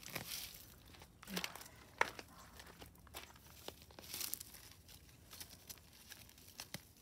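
Light rustling and crinkling with scattered soft clicks and taps, the loudest click about two seconds in.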